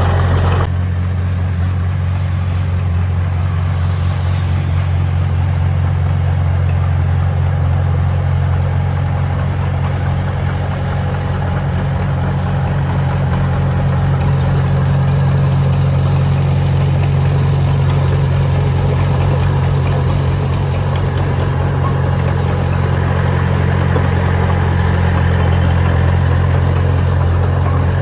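Heavy diesel engine of a construction machine running steadily at a low, even drone.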